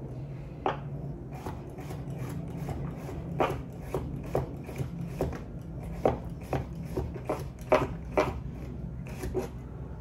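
Knife slicing a cucumber on a wooden cutting board: short, irregular chopping strokes, about one or two a second, each blade hitting the board.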